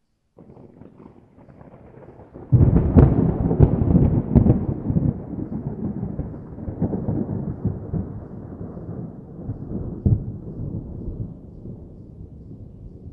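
Thunder: a faint low rumble, then a sudden loud thunderclap about two and a half seconds in, crackling at first, followed by a long low rumble that slowly fades.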